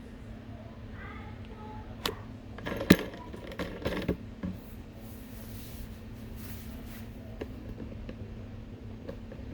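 A few sharp metallic clinks and clatters, the loudest about three seconds in, over a steady low hum.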